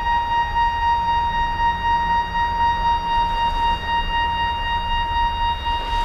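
A single high tone held steady, rich in overtones, over a constant low rumble.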